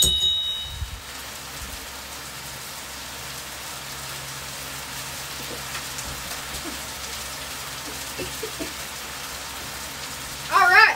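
Chicken and bacon sizzling steadily on a Blackstone flat-top griddle. A click with a brief high ring comes right at the start, and a short vocal sound near the end.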